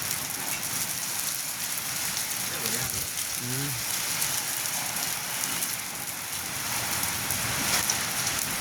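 Hail falling: a steady, dense patter of hailstones striking surfaces.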